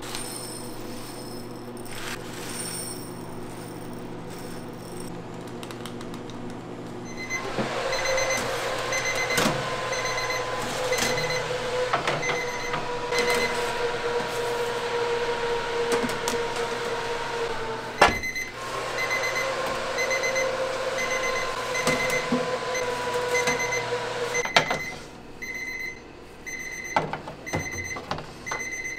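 An electric kitchen machine's motor runs with a steady hum, cuts out briefly with a sharp click, then runs again and stops a few seconds before the end. An electronic beeper sounds over and over at an even pace and keeps beeping after the motor stops.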